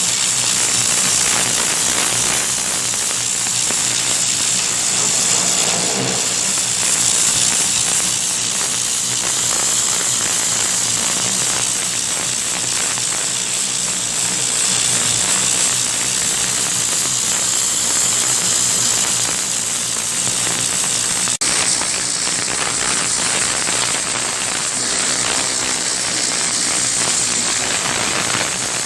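High-pressure water jet spraying and hissing against roofing, with the steady hum of the pressure washer's pump underneath; the spray breaks off briefly about 21 seconds in.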